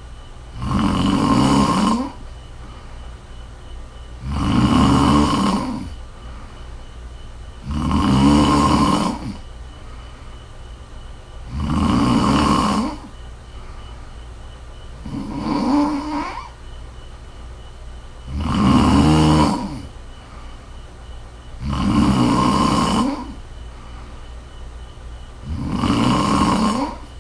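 A sleeping woman snoring in a steady rhythm: eight snores, one about every three and a half seconds, each lasting a second or so.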